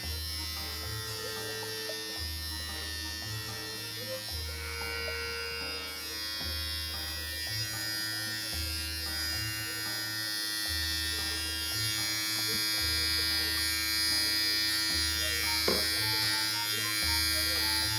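Electric dog hair clippers buzzing steadily as they shave through a Maltese's curly coat, a little louder in the second half, with one brief click near the end.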